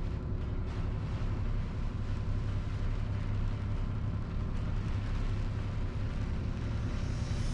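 Diesel engine of a Mitsubishi Fuso Super Great heavy truck running steadily while the truck drives, a constant low rumble under an even hiss of road noise.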